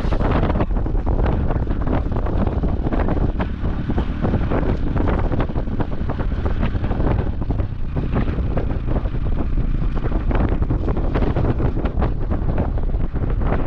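Wind buffeting the microphone with a loud, constant rumble and irregular gusty thumps.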